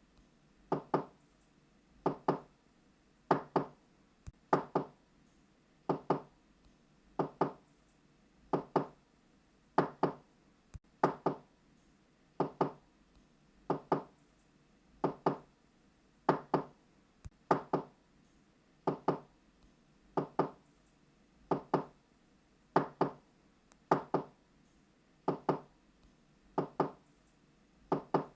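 Knocking on a door: a quick double knock, repeated steadily about every second and a bit.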